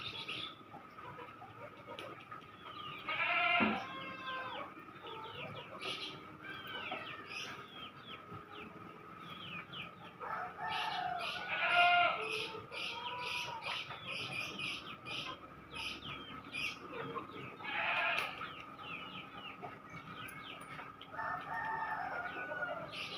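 Roosters crowing about four times, each crow a second or two long, among short chirps and clucks, over a steady high whine.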